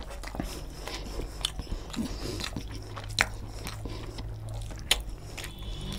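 Close-miked chewing and wet mouth smacks of a person eating rice and egg curry, with two sharp clicks, one about three seconds in and another near the end.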